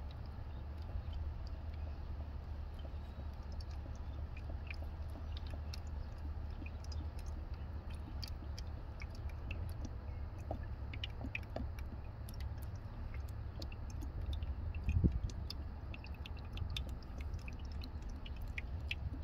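Automatic transmission fluid trickling from a plastic bottle through a plastic funnel into an engine's oil filler, with small irregular wet clicks as it pours. A steady low hum lies underneath, and there is one soft thump about fifteen seconds in.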